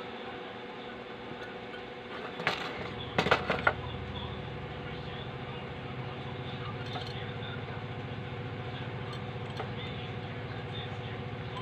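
Small metal parts and tools clicking and knocking on a workbench a few times around three seconds in, as transistor and heat-sink parts are handled for soldering. About three seconds in, a low steady mechanical drone with a fine even pulse also sets in and keeps going.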